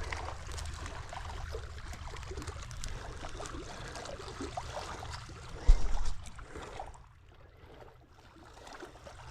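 Water trickling and lapping at a lake's edge, with small splashes and rustles over a low rumble. A single loud low thump comes just before six seconds in, after which it goes quieter.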